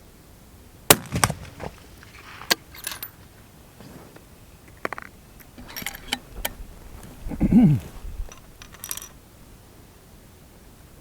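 Bolt-action target rifle being handled: a sharp crack about a second in, then a run of metallic clicks and clacks as the bolt is worked and brass comes out, with a low, dull thud about two-thirds through.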